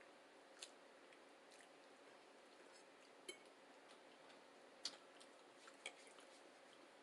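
Near silence broken by a few faint, irregular clicks of eating, soft mouth and chewing sounds, the loudest about five seconds in.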